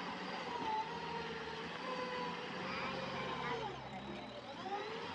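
A heavy vehicle's diesel engine running steadily, its pitch wavering slightly, with voices in the background.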